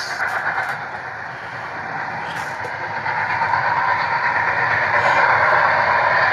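Pennsylvania Railroad T1 4-4-4-4 duplex steam locomotive running, a steady rushing, hissing noise that dips briefly about a second in, then builds and holds loud.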